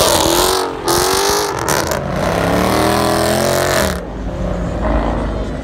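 Dodge Challenger's engine revving hard with its rear tyres squealing as it spins donuts, the revs rising and falling. About four seconds in it changes abruptly to a quieter, lower engine rumble.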